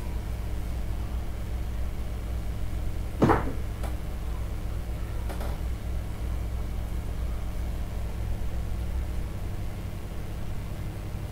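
Steady low background hum, with one sharp click about three seconds in and a fainter click about two seconds later.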